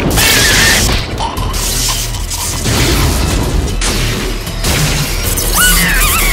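Loud cartoon electrocution sound effects: harsh electric crackling and buzzing as a lightning bolt strikes a larva. A high squealing cry from the larva comes about a quarter second in, and more squealing, bending up and down in pitch, comes near the end.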